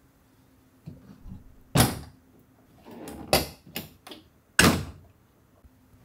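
Sharp plastic clacks and knocks as an air conditioner's panel is opened and its filter handled, four or five separate knocks with the loudest about two seconds in and another near the end.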